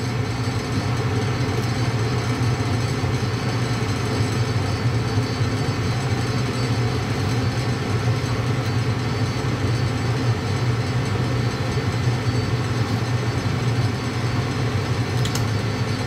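Gas furnace firing with only its draft inducer blower and burners running: a steady hum and rush with the main circulating blower still off and the duct blocked, so heat is building toward the high-limit cutout. A faint click near the end.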